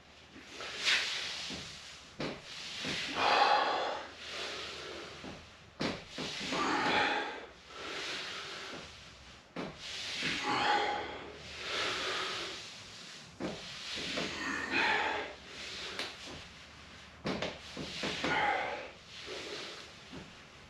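A man breathing hard through TRX suspension-strap press-ups, with a loud exhale every two to four seconds in time with the reps. A few short clicks sound between the breaths.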